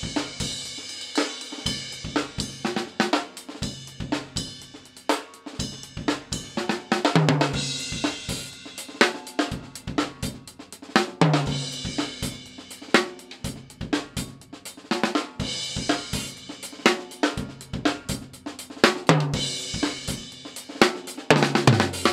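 A drum kit played in a steady groove featuring a Pork Pie Little Squealer popcorn snare, with hi-hat, bass drum and tom hits. A cymbal crash with a low drum hit lands about every four seconds.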